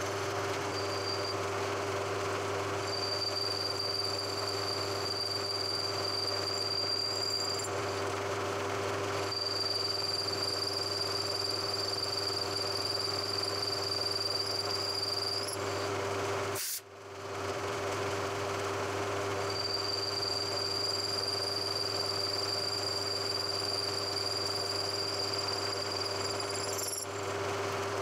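A machine tool cutting a slot in a metal burner-tube coupling ring, running with a steady hum. A thin high whine comes and goes three times as the cutter bites. The sound drops out for an instant about two-thirds through.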